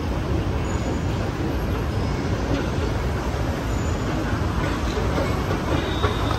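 Steady low rumbling noise on an elevated BTS Skytrain platform, even throughout with no distinct events.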